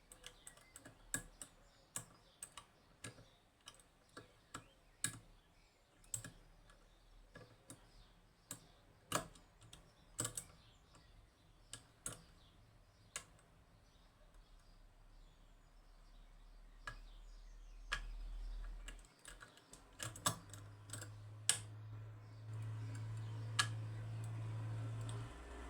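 Small metallic clicks and taps of lock-picking tools working the levers inside a Union (Chubb) G110 lever lock, irregular and a few a second, as the levers are lifted and tapped one by one toward their true gates. A low steady hum joins in near the end.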